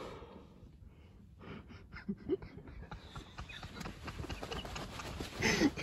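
Hunters shifting inside a fabric pop-up ground blind: clothing and blind fabric rustle with scattered small clicks, busier from about three seconds in. Breathing runs under it, and there is a short breathy vocal sound near the end.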